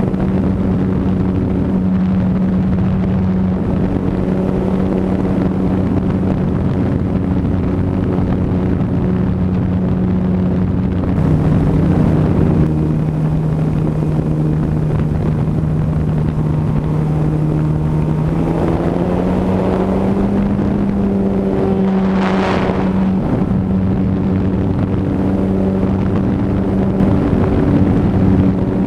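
Motor and propeller of a radio-controlled Sopwith Camel model biplane running steadily in flight, heard from on board with wind rushing over the microphone. The pitch drops about eleven seconds in, climbs back up about a third of the way from the end, and a brief rush of wind sweeps past a little later.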